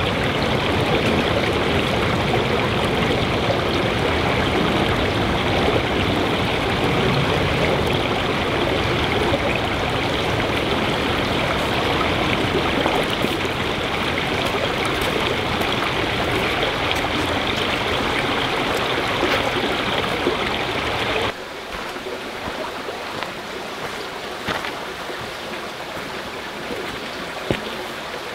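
Creek water running steadily over rocks, an even rushing hiss. About three quarters of the way through it drops suddenly to a quieter, more distant wash with a few faint clicks.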